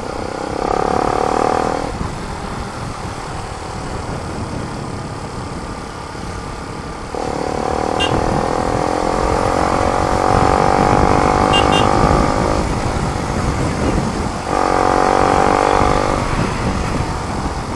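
Motorcycle engine running through its new muffler while riding, the exhaust note swelling louder three times: briefly about half a second in, for about five seconds from about seven seconds in, and for two seconds near the end. A steady low rushing noise lies under it throughout.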